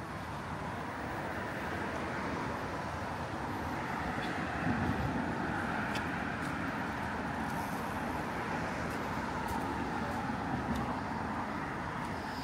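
City road traffic: a steady wash of car tyre and engine noise that swells about five seconds in, as a vehicle passes close by, then eases off.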